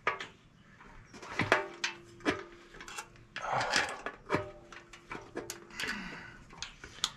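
Handling noise as a fuel pump access plate is fitted to the underside of a steel motorcycle gas tank: scattered clicks and knocks of the plate and its hose fittings against the tank.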